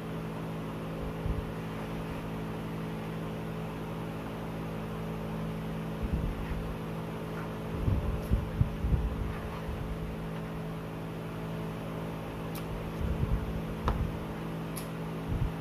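Steady electrical hum in a room, with clusters of soft low bumps and mouth noises from eating and handling a plate, about six, eight and thirteen seconds in.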